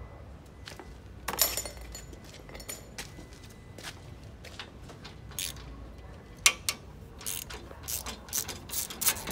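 Hand tools working on metal: irregular ratchet-like clicks and knocks as the car's AC condenser pipe fittings are undone, coming more often in the second half.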